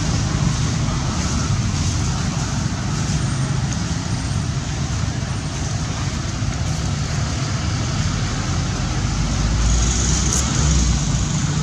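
Steady low rumbling background noise, with no distinct event, growing a little louder near the end.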